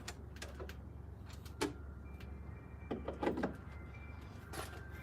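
A series of short clicks and clunks from handling a car's door and interior, over a steady low hum. About four and a half seconds in, a steady electronic warning-chime tone from the car starts up.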